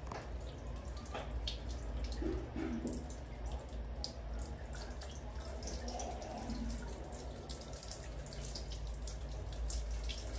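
Water running from a wall tap and splashing over a baby monkey's fur and the tiled floor as the monkey is rinsed by hand, with scattered small drips and splashes.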